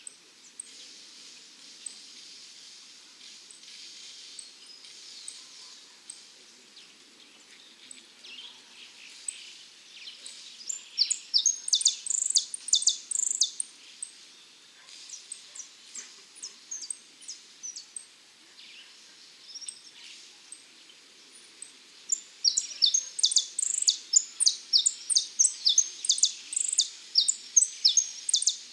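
Saffron finch (dorado) singing in runs of quick, sharp high notes. One burst comes about a third of the way in, then scattered notes, then a long, fast run through the last quarter.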